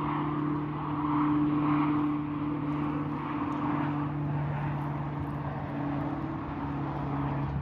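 An engine running steadily, a constant low hum with a noisy hiss over it that holds level throughout.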